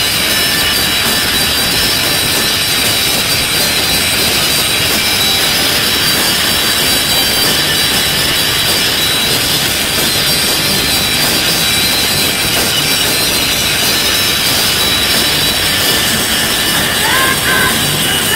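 Grunge/garage rock band playing live at full volume: electric guitars, bass and drums merge into a dense, steady wall of noise. A voice singing comes in near the end.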